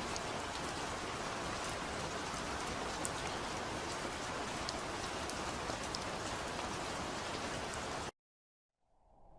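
Steady rain falling, with individual drops ticking through the hiss; it cuts off suddenly about eight seconds in, and a different, lower sound starts to fade in near the end.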